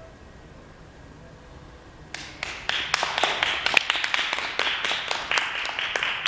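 A short hush, then an audience applauding from about two seconds in: a dense patter of hand claps that carries on steadily.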